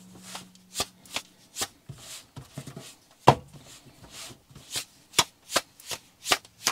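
Hands patting and pressing pizza dough flat on a floured wooden counter: a run of short, soft slaps, irregular at about two a second, one louder about three seconds in. Near the end the dough is lifted and slapped between the hands.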